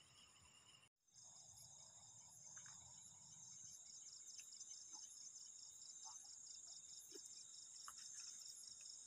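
Faint chorus of night insects: steady high-pitched trilling with a regular pulse of a few beats a second. The sound drops out completely for a moment about a second in.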